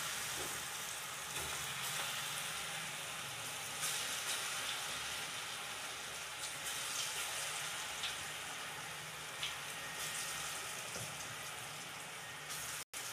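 Moong dal batter fritters (mangodi) deep-frying in hot oil in a kadhai: a steady sizzle with scattered crackles.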